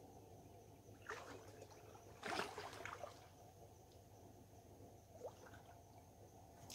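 A few brief, faint splashes of shallow river water as a person wades and shifts about in it. The loudest comes a couple of seconds in, with smaller ones about a second in and near the end.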